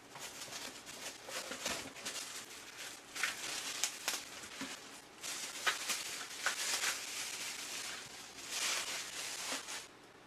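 Clear plastic packaging crinkling and rustling as a wrapped tablet case is handled and taken out of a cardboard box. It is an irregular crackle with sharper bursts now and then.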